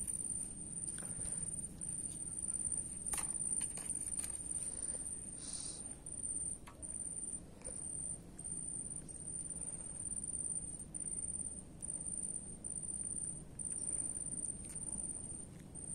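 An insect trilling in one high, steady tone broken by short gaps, over a faint low rumble with a few light clicks.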